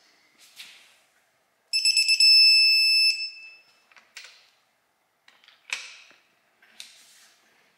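Digital torque wrench beeping as it reaches its set torque of 85 foot-pounds on a cylinder head stud: a few quick high beeps running into one solid beep of about a second and a half, about two seconds in. A few short clicks of the wrench and socket follow.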